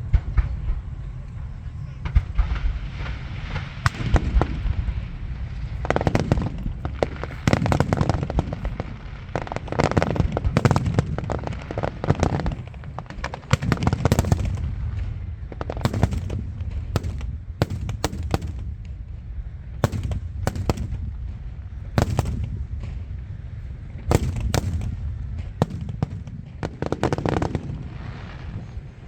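Aerial fireworks going off: a rapid, irregular string of sharp bangs and crackles over deep rumbling booms that swell every few seconds.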